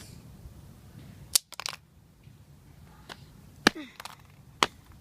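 A fidget spinner being struck hard again and again, several sharp cracking blows at uneven intervals as someone tries to smash it. It holds up with barely any damage.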